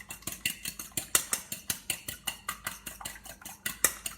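A fork beating an egg in a bowl: quick, even clinks of the fork against the bowl, about eight a second.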